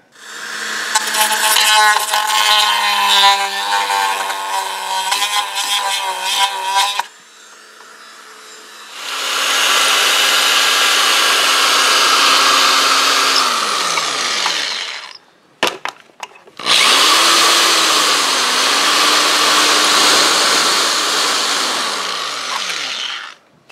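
Dremel rotary tool grinding in three runs of several seconds each, loud and steady. At the end of the second and third runs the motor's pitch falls as the tool spins down.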